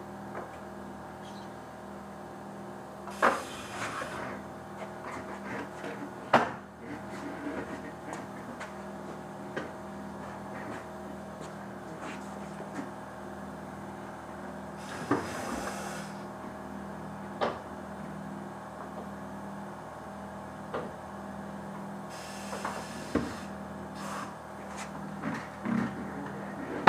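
Knocks and clanks of a car tire being worked on a tire-changing machine, with three short bursts of hiss over a steady hum.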